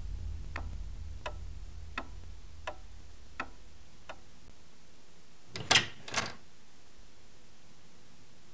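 Wall clock ticking steadily, about three ticks every two seconds, the ticks growing fainter and dying away about four seconds in. Then two loud, sharp noises come about half a second apart.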